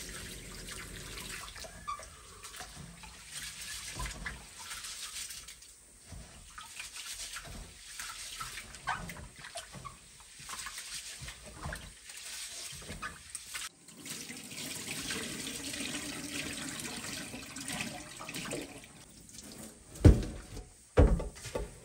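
Rice being washed by hand in a stainless steel bowl under a running kitchen tap: water running and splashing as hands swish and rub the grains. Near the end there are two loud thumps, as the bowl is tipped to pour off the water.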